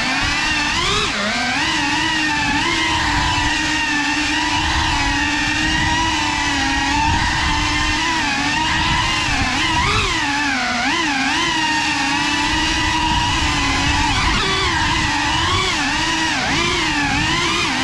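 GEPRC cinewhoop FPV quadcopter's motors and ducted propellers buzzing in flight, the pitch rising and falling over and over as the throttle changes. Heard up close from the camera riding on the drone.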